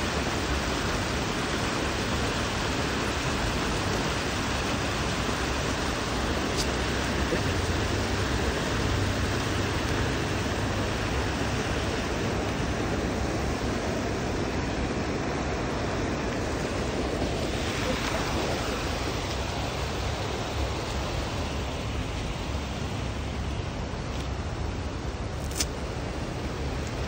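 Water rushing over a sluice-gate weir, a steady even noise that eases slightly toward the end. A single sharp click comes near the end.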